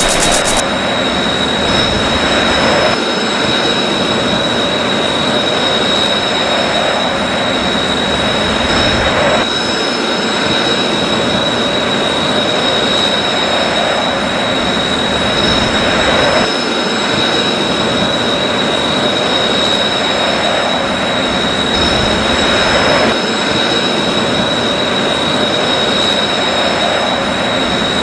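Jet aircraft engine sound effect playing as a continuous steady roar, its character shifting every six or seven seconds, with a steady high-pitched whine over it.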